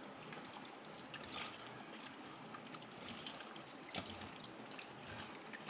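Faint wet squishing of hands working chicken through a thick yogurt-and-masala marinade in a stainless steel bowl, with one sharper tick about four seconds in.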